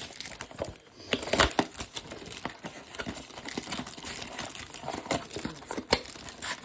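Plastic wrap and cardboard packaging of a trading-card blaster box being crinkled and torn open, an irregular crackling rustle with a couple of sharper rips, about a second and a half in and near the end.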